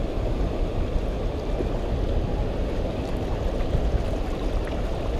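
Steady rush of choppy water washing against a rock jetty, with a low rumble underneath.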